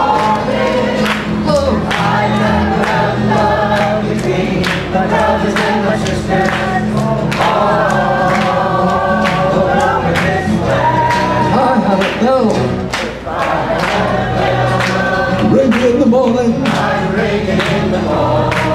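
Many voices singing along together to a strummed twelve-string acoustic guitar, a folk singalong with steady strums under the massed singing.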